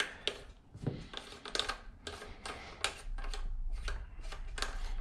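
Irregular light metallic clicks and taps as a 12-gauge choke adapter is screwed by hand into a shotgun muzzle.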